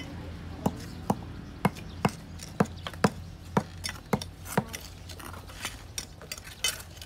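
Bricks being tapped down into mortar with a mason's trowel: sharp knocks about two a second, turning to lighter, irregular knocks and clinks in the last couple of seconds.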